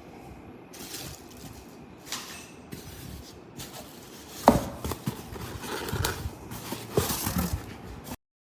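Irregular knocks, clicks and rustling of hard objects being handled, the sharpest knock about four and a half seconds in; the sound cuts off abruptly shortly before the end.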